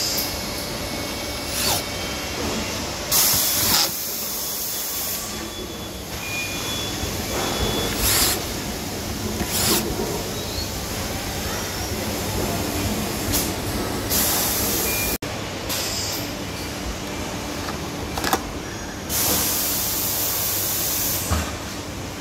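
A steady low hum with short bursts of hiss every few seconds, the loudest about three seconds in and a longer one near the end.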